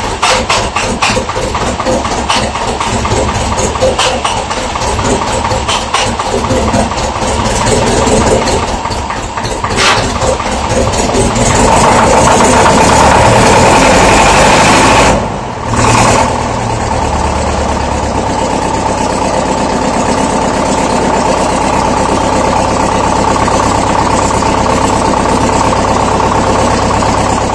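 Zetor 6245 four-cylinder diesel tractor engine running cold at −3°C, clattering unevenly at first. About twelve seconds in it picks up and runs louder, drops away briefly a few seconds later, then settles into steady running. The engine is due for an overhaul.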